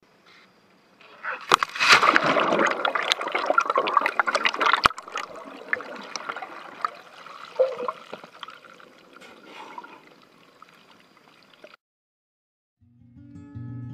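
Underwater rush and gurgle of a cloud of air bubbles streaming past the camera, heard through its waterproof housing. It is loudest and crackling with bubble pops in the first few seconds, then fades and cuts off suddenly. Acoustic guitar music starts near the end.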